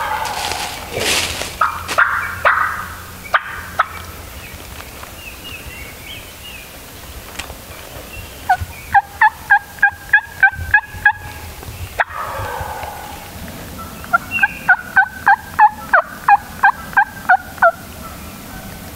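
Wild turkey calls: two runs of loud, quick yelping notes, about nine and then about a dozen, roughly three a second, with softer calling in the first few seconds.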